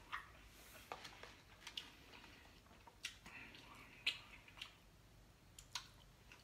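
Close-up eating sounds: quiet chewing with scattered sharp wet mouth clicks and smacks, roughly one every half second to a second.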